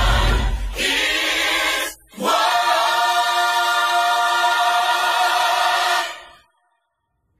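Gospel choir singing, with a deep bass line under the voices for the first second. The voices drop out briefly about two seconds in, then hold one long chord that cuts off about six seconds in.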